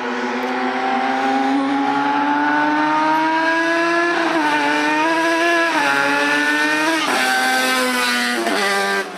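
Twin-cylinder two-stroke engine of a 4x4 riding mower, fitted with a single expansion-chamber pipe, revving under way. Its pitch climbs steadily for about four seconds, then dips and rises again several times as the throttle is worked, and it falls away sharply near the end.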